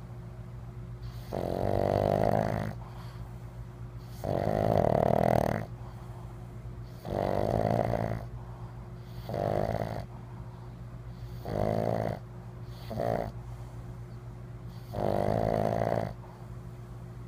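Pug snoring in its sleep: seven snores, most one every two to three seconds, with two short ones close together about two-thirds of the way in.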